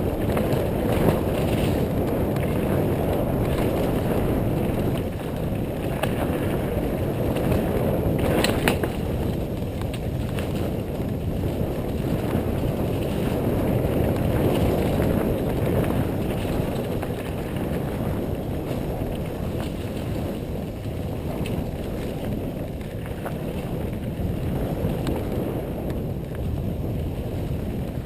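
Mountain bike running down a dirt trail: a steady rush of tyre rumble and wind, with the bike rattling and one sharp clack about eight seconds in. The descent is being ridden on a tyre that the rider calls flat.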